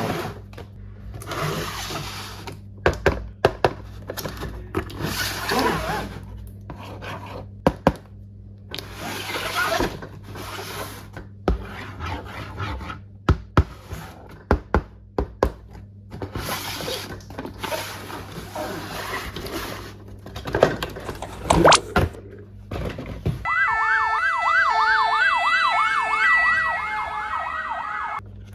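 Plastic packaging rustling and crinkling in short bursts, with sharp clicks of plastic parts. Near the end comes about five seconds of a toy emergency vehicle's electronic siren, a fast up-and-down wail with beeping tones over it. A steady low hum runs beneath.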